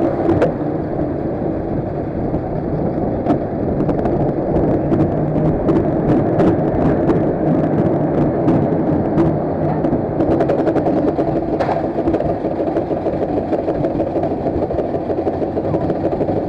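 Small roller coaster train running along its track: a steady low rumble with scattered sharp clicks from the wheels and track.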